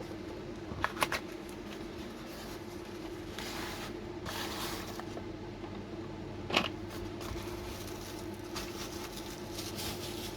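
Rustling and light clicks of small objects being handled, with two sharp clicks about a second in and a louder one about six and a half seconds in, over the steady hum of an electric fan and blower.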